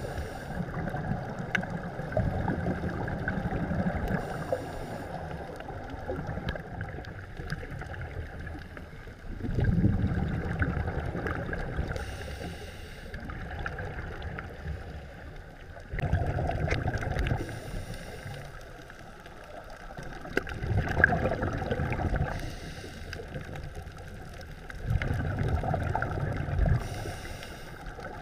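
Scuba divers breathing through their regulators, heard underwater: surges of exhaled bubbles about every five seconds, with short hisses between them over a steady muffled rumble.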